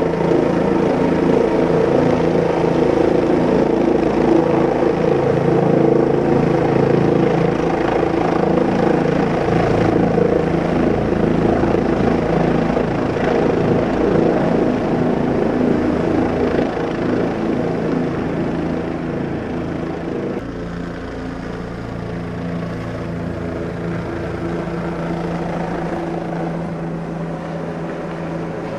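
Helicopter engine and rotor noise heard from on board in flight: a loud, steady drone with a low hum of even tones, easing slightly about two-thirds of the way through.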